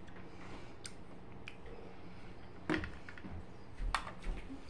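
Scattered light clicks and taps, the loudest about two and a half seconds in and a few more near the end, over a steady low hum.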